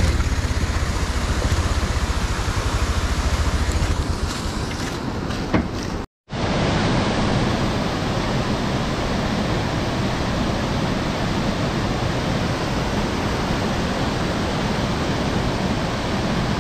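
Motorcycle engine idling with a steady low pulse, fading out about five seconds in. After a short break, the steady rush of a tall waterfall and the rocky stream below it.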